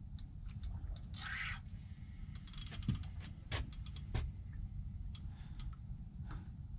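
Spinning fishing reel clicking and ratcheting in irregular bursts as the angler works a big hooked fish on a bent rod, with a short hissy burst about a second in.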